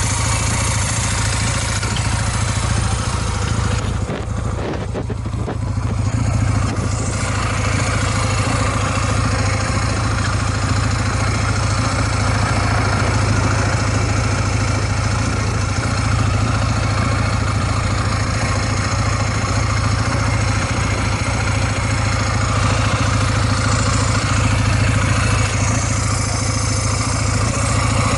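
Honda Rebel 250 (MC13) air-cooled 234 cc parallel-twin engine idling steadily, with a brief dip in level about four seconds in. It runs evenly, without abnormal noises.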